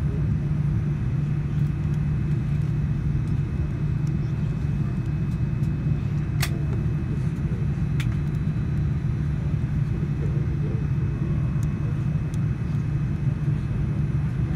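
Inside the cabin of a Boeing 787-9 taxiing: a steady low rumble from the General Electric GEnx-1B engines at taxi power and the airframe rolling. Two brief sharp clicks come about six and eight seconds in.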